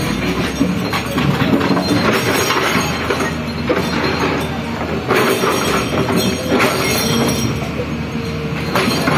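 Hydraulic excavator running under load while its bucket scrapes, knocks and grinds against old concrete, with irregular metallic screeches and clanks.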